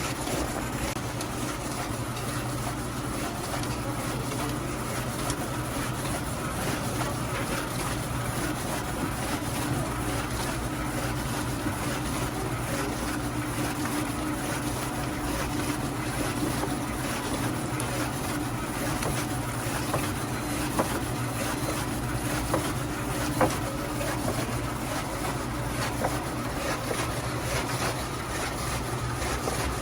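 Electric radish-slicing food machine running with a steady motor hum, with a few sharp clicks in the second half.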